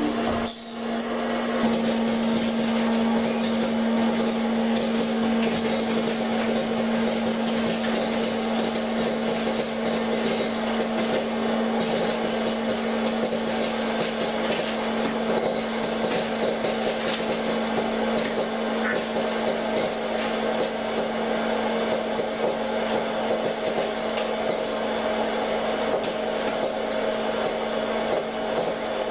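Hot-air popcorn popper running: its blower hums steadily while kernels pop in scattered sharp cracks throughout.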